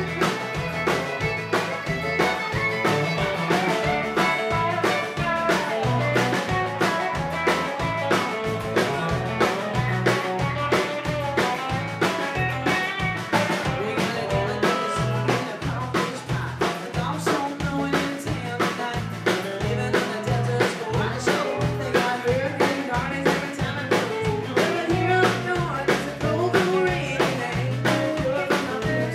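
Live country band playing an instrumental stretch: fiddle, acoustic and electric guitars over a drum kit keeping a steady beat.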